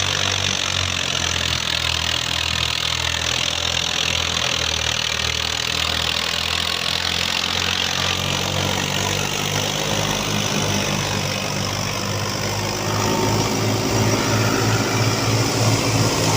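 Al-Ghazi 65 hp tractor's diesel engine running steadily with an even low throb, getting a little louder about 13 seconds in.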